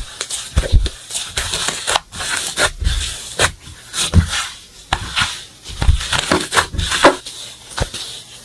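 Slime being squeezed and poked by hand: irregular wet squelches, low squishes and sharp popping clicks as air pockets burst.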